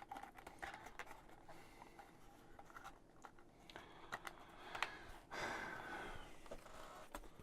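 Light clicks and taps of laser-cut MDF kit pieces being handled and fitted together, with a longer rustling scrape about five seconds in.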